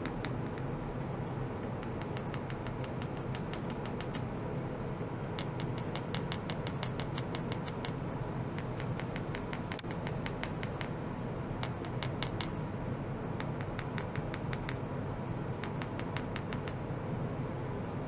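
Metal ultrasonic probe rods tapped rapidly with a small wooden mallet: quick runs of light, evenly spaced metallic ticks, about six a second, each with a brief high ring, over a steady low hum.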